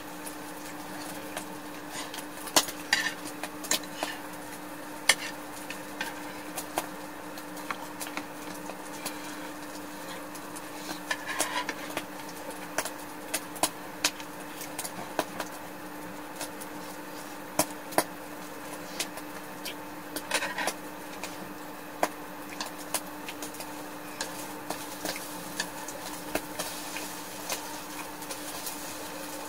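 Chopsticks and tableware clicking and clinking against a dish while someone eats, scattered and irregular, over a steady low hum.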